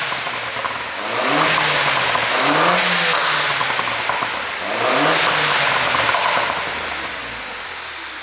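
MINI Cooper S 1.6-litre turbocharged four-cylinder revved three times through the stock exhaust, each rise followed by a burst of pops and crackles on the overrun from the pop-and-crackle ECU tune. The engine settles back and the sound fades near the end.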